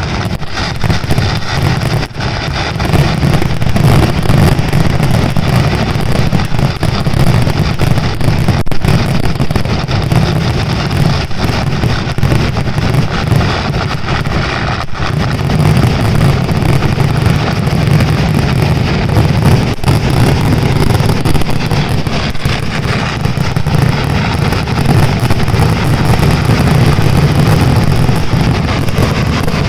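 A large fireworks display going off continuously, the bursts so dense that they merge into one steady, loud din with a heavy low rumble.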